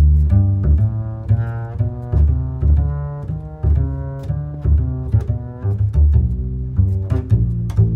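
Background music: a low string line whose notes change about twice a second.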